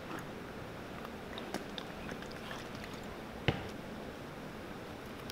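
Small ticks and scrapes of a hand tool being worked in under the edge of a cowboy boot's glued leather sole to pry it loose, with one sharp click about three and a half seconds in.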